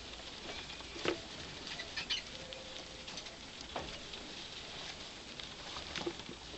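Pet rats feeding at a bowl and moving over wood-shaving bedding: scattered small clicks and rustles, with a few sharper clicks.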